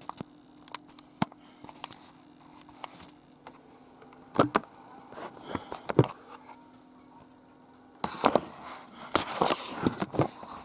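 Scattered sharp plastic clicks and knocks, then a run of rapid clicking and rattling about eight seconds in: a Rubik's cube being handled and its layers turned. A faint steady hum runs underneath.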